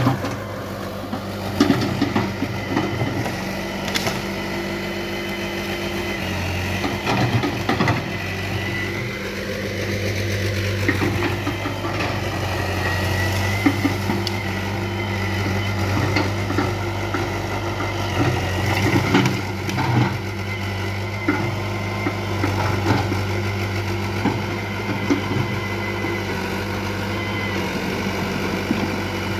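Hitachi UH035 hydraulic excavator's diesel engine running steadily while the machine works, with scattered sharp metal knocks and clanks.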